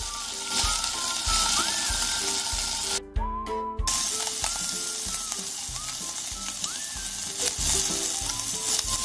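Bacon-wrapped cheese rolls sizzling in a frying pan, over light background music with a steady beat. The sizzle cuts out for under a second about three seconds in.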